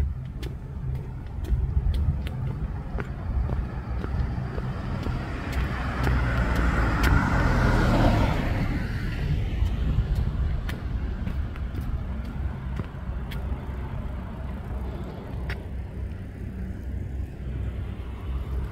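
A car passes by on the street. Its tyre and engine noise swells to its loudest about seven or eight seconds in and then fades, over a steady low rumble.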